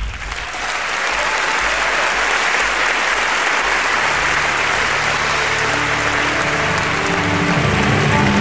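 Large audience applauding steadily, with music entering underneath about halfway through.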